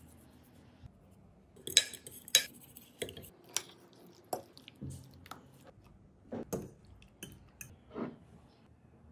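Utensil stirring raw chicken strips through a wet marinade in a glass baking dish, clinking and knocking irregularly against the glass, loudest about two seconds in.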